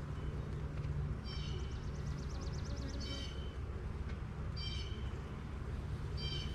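A bird calling outdoors: four short, high calls about every second and a half to two seconds, with a fast high trill between the first two. Under them runs a steady low hum from the honeybees around the opened hive.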